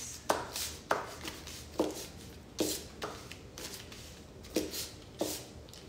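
Kitchen knife chopping peeled raw shrimp on a paper-lined wooden cutting board: six sharp knocks of the blade striking the board, irregularly spaced.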